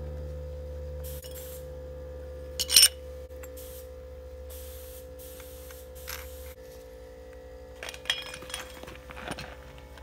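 Metal suspension parts clinking and scraping as a Tokico Blue shock absorber is put together with an Eibach lowering spring and its strut mount. There is a loud clank about three seconds in, short bursts of rustling, and a cluster of clinks near the end.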